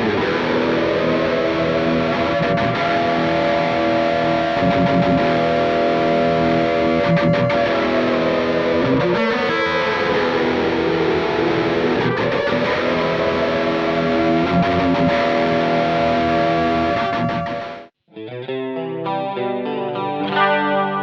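Electric guitar played through a Suhr Riot high-gain distortion pedal. Long, sustained distorted notes bend slowly down and back up in pitch. The sound cuts off suddenly about 18 seconds in, and a new distorted riff of separate picked notes starts.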